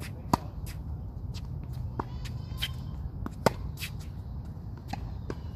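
Tennis ball struck by rackets in a baseline rally. Two sharp, loud hits come about three seconds apart, with fainter pops between them.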